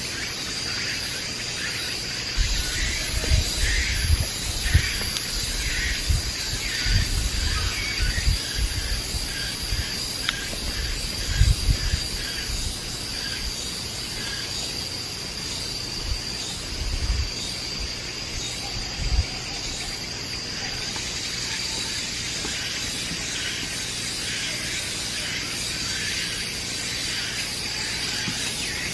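Insects in the forest keep up a steady high-pitched drone over a faint hiss. Irregular low thuds come through in the first twelve seconds or so, and a few more come a little later.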